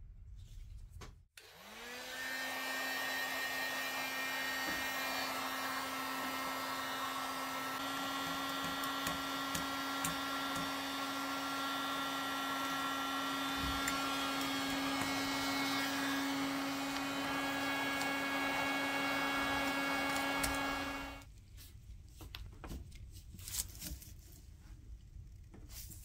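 Electric heat gun blowing hot air. Its motor spins up about a second in, runs at a steady pitch with a hiss of air, and switches off abruptly about 21 seconds in. A few light clicks of handling follow.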